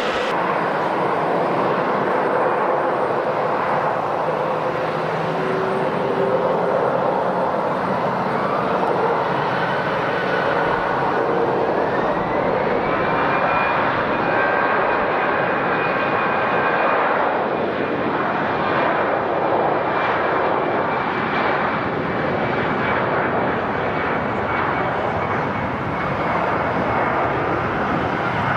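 Jet airliner engines running: a steady, loud rush of engine noise with a thin whine that rises in pitch about eight seconds in and then holds steady.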